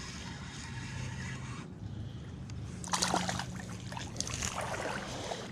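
Creek water trickling, with a few short splashes about three seconds in and again shortly after.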